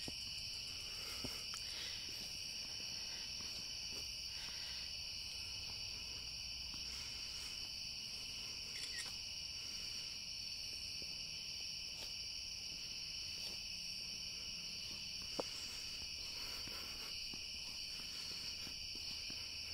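Crickets chirping in a steady, unbroken chorus, with one faint click about three quarters of the way through.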